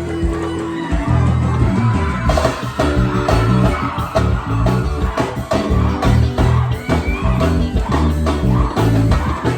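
A live band playing gospel forró, with electric guitar over bass and drums. The full band comes in about a second in, after a held note.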